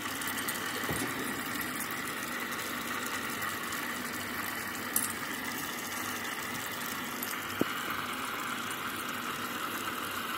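Steady running noise of a vacuum filtration setup, suction drawing acetone extract through a Büchner funnel, with two faint ticks about halfway through.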